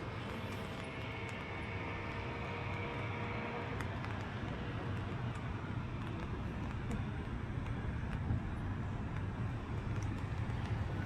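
Steady outdoor urban background of road traffic rumble, with a faint held tone in the first four seconds.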